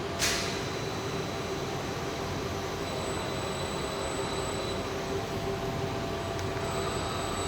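ABB industrial welding robot cell running: a steady mechanical hum with faint whining tones, and a short sharp hiss about a quarter of a second in.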